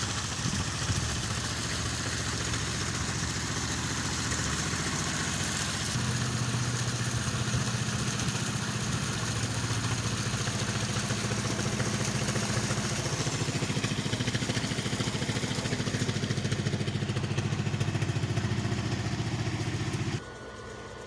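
A motor running steadily, a hum under a broad rushing noise, dropping away suddenly about a second before the end.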